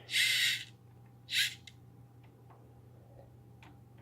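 Two short bursts of hiss, the first lasting about half a second and the second, shorter one about a second later, followed by a few faint clicks over a steady low hum.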